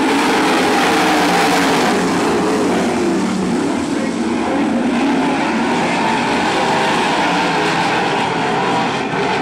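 A field of wingless open-wheel dirt-track race cars running hard together, many engines at once with overlapping, wavering pitches in one steady, loud drone.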